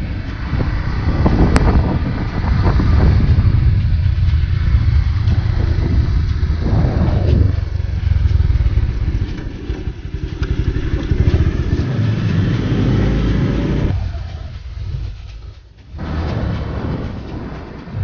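Motorcycle being ridden, its engine and a heavy low rumble filling the sound, with one sharp click about a second and a half in. The sound dies down for a couple of seconds near the end, then picks up again.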